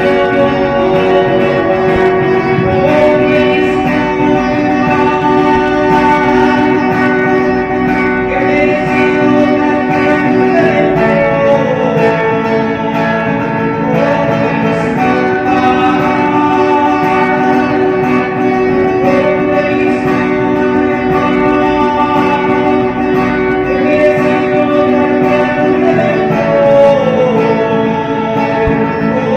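Music led by guitar, with long held notes and a few sliding ones, at a steady loudness.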